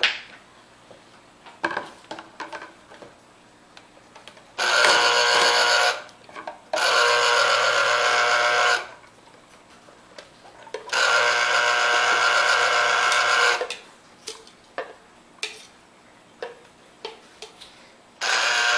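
Small electric mini food chopper running in short pulses with a high, steady whirring whine: three bursts of about one and a half to two and a half seconds, starting about five, seven and eleven seconds in, and a fourth starting just before the end. Light clicks and knocks come in the quiet gaps between them.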